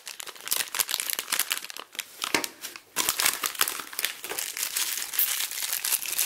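Foil packet around a Vinylmation blind-box figure crinkling and crackling in the hands as it is handled and pulled open, with a short lull about three seconds in.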